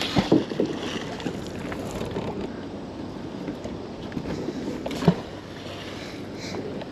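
A fishing magnet on an orange rope splashing into the river, with a few short knocks as it lands, then a steady rush of wind and water while the rope is hauled back in hand over hand; one sharp knock about five seconds in.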